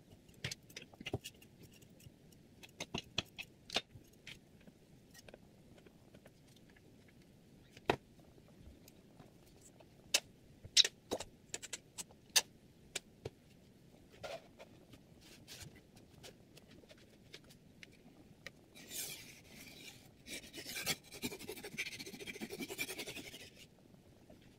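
Scattered clicks and knocks of a metal knife clamp and guide rod on a whetstone sharpening jig being handled and tightened, then about five seconds of scraping, rasping noise near the end.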